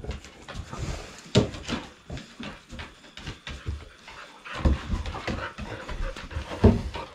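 Several pit bulls jostling and panting close by, their claws and paws clicking and knocking irregularly on a wooden plank floor, with a few louder thumps.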